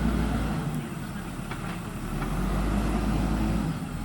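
JCB 3DX backhoe loader's diesel engine running, rising in a low surge twice as it takes load: once at the start and again for about a second and a half near the end.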